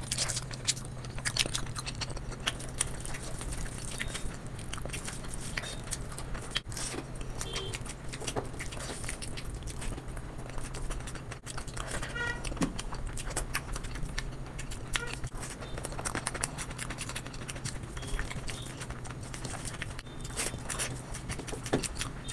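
Close-miked eating by hand: wet chewing and mouth clicks, and fingers working rice and egg curry on a steel plate, making many small crackling clicks. A steady low hum runs underneath.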